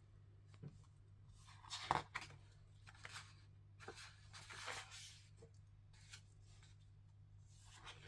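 Pages of a picture book being turned and handled: a few faint paper rustles, the loudest about two seconds in, over a low steady hum.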